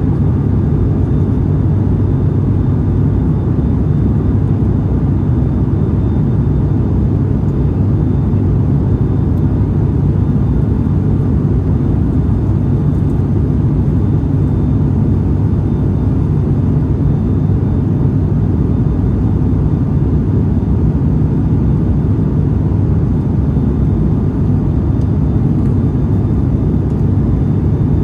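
Steady cabin drone of a turboprop airliner's engines and propellers, deep and unchanging.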